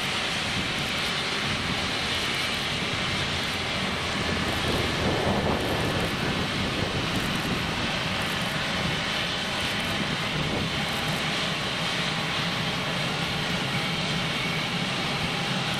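Airbus A350's Rolls-Royce Trent XWB jet engines running steadily at taxi power as the airliner rolls slowly across the apron.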